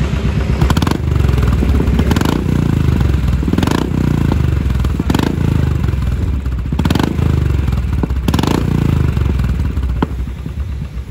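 Royal Enfield Classic 500's single-cylinder engine, breathing through an aftermarket LeoVince exhaust, revved in short throttle blips about every one and a half seconds, six times, dropping back to idle between blips.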